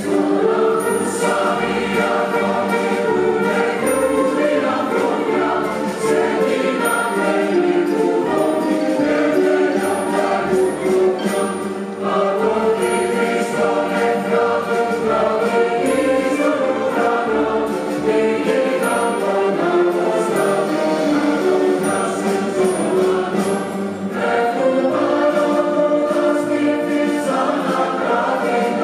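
Large mixed choir singing with an orchestra of strings and double bass accompanying.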